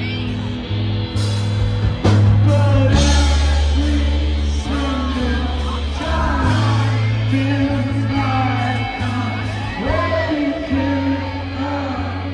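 Indie rock band playing live and loud through a PA: heavy bass notes and electric guitar under a sung vocal, with drum hits.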